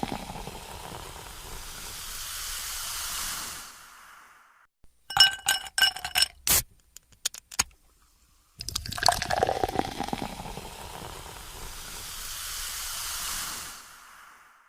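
Carbonated soda fizzing as it is poured into a glass, then metallic clinks of an aluminium can's pull tab with a sharp crack of the can opening about six and a half seconds in, then a second fizzing pour starting about nine seconds in.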